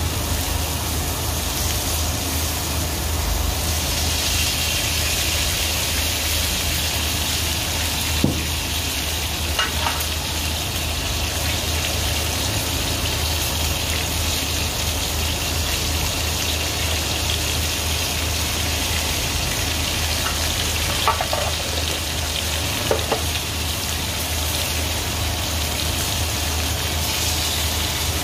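Sirloin steak sizzling in a hot frying pan: a steady frying hiss that grows stronger a few seconds in, over a steady low hum, with a few light knocks.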